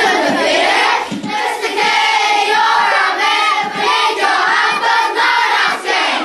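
A large group of primary-school children chanting a rap together in unison, loud and without pauses.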